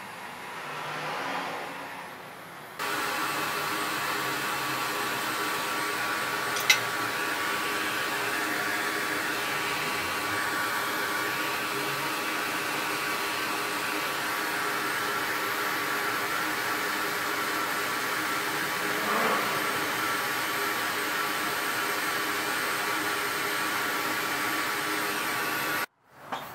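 Steady blowing hiss of a hot air rework station, with a few steady tones in it, heating the power-phase components of an EVGA GTX 970 graphics card to swap a MOSFET driver. It starts suddenly about three seconds in and cuts off just before the end, with one sharp click about seven seconds in.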